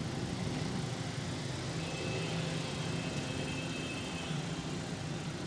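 A motor vehicle's engine idling with a steady low hum. A faint high whine joins in for about two seconds in the middle.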